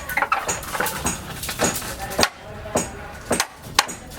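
A quick, irregular series of sharp knocks and clinks, several with a short high ring, with faint voices or music behind.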